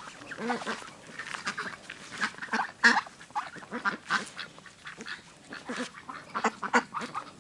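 Domestic ducks quacking: many short calls at irregular intervals.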